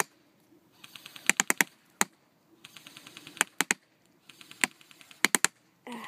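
JG Works M16A1 airsoft electric rifle firing short full-auto bursts of rapid sharp clicks, about a dozen a second, with single semi-auto shots between the bursts.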